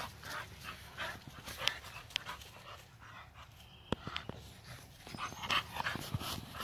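American bully dogs breathing hard in short, quick, uneven breaths while they play, with a few sharp clicks, the clearest about four seconds in.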